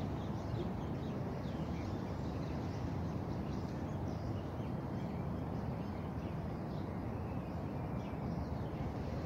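Outdoor ambience: a steady low background noise with scattered faint bird chirps.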